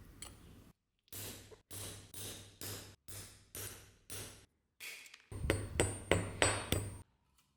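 Hand tools working metal: a run of even scraping strokes, about two a second, then a louder run of sharp metallic taps with a thin high ring, typical of hammering on metal.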